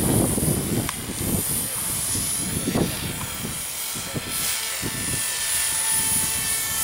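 Battery-powered radio-controlled model helicopter flying, its electric motor and rotor giving a steady high whine. Heavy gusts of wind buffet the microphone in uneven rumbles.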